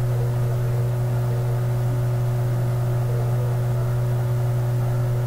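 A steady low mechanical hum at an even level.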